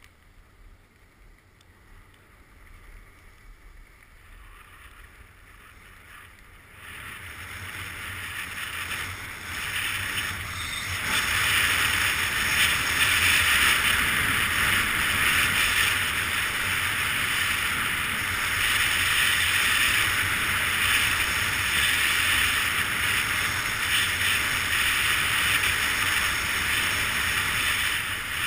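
Skis hissing over snow with wind rushing on the microphone: a steady rushing noise that is faint at first, then grows loud between about seven and eleven seconds in as the skier picks up speed, and stays steady after that.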